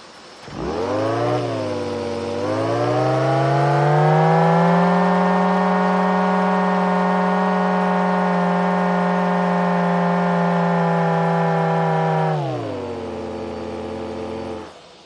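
Homemade supercharged turbine spinning up with a rising, wavering whine, then running at a steady pitch for about eight seconds before dropping lower and stopping near the end.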